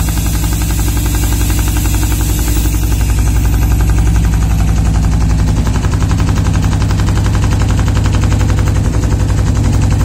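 ANZE CNC leather hole punching machine punching rows of holes in a sheet: a rapid, even stream of punch strokes over a steady low machine hum.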